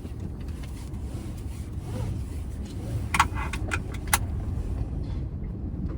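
Steady low rumble of a car running, with a few light clicks about halfway through.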